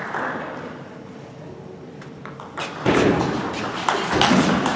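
Table tennis rally: a quiet lull, then from about halfway in a quick run of sharp clicks and knocks as the ball is served and struck back and forth off the bats and table, with thuds of the players' feet on the court.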